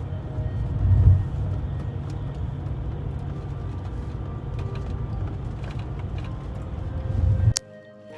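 Low, steady rumble of a vehicle driving on the road, heard from inside. It swells about a second in and again near the end, then cuts off abruptly with a click.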